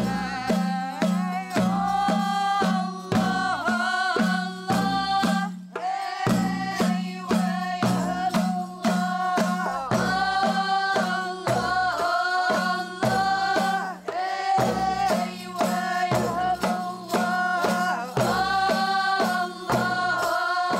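Women's Sufi Hadra chant from Chefchaouen: women's voices singing in unison over a steady beat of hand-played frame drums and goblet drums. There is a brief break in the beat about six seconds in.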